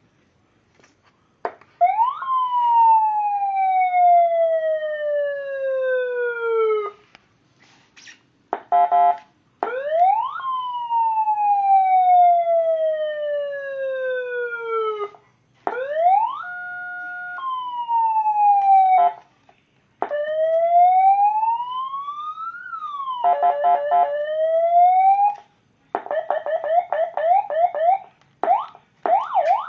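Electronic vehicle siren played through a siren speaker, stepping through its tones. There are two long wails, each rising quickly and then falling slowly over about five seconds, and a short jump between two held pitches. A slow rise and fall follows, then a short pulsing tone, and near the end a fast yelp.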